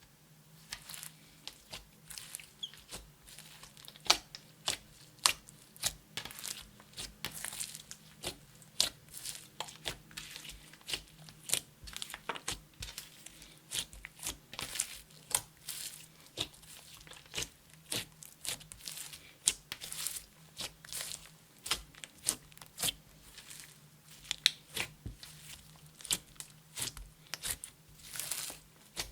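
Clear slime with makeup and glitter mixed in, being squished and stretched by hand: an irregular run of sticky pops and crackles, a few a second.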